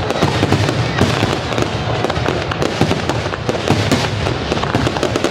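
Fireworks display: many bursts and pops going off in quick succession, densely overlapping.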